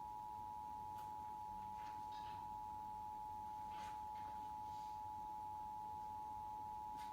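Emergency Alert System attention signal: the two-tone 853 and 960 Hz alert tone, held steady, relayed over a TV station's broadcast audio as the start of a monthly EAS test.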